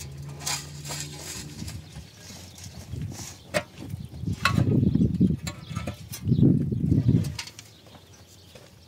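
Two loud animal calls, like livestock bleating, about four and a half and six and a half seconds in, with a few sharp clinks of hollow concrete blocks being handled just before them.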